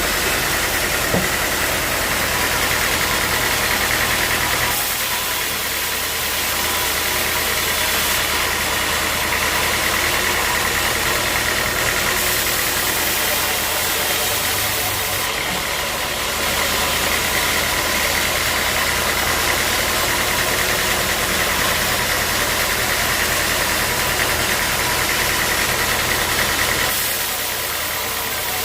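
Band sawmill running steadily, its engine humming under a high, even whine from the saw. The sound shifts slightly about five seconds in and again near the end.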